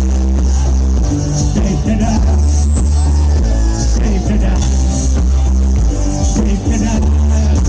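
Live synth-pop band playing loud through PA speakers, recorded from close up so the sound is distorted, with a heavy bass line.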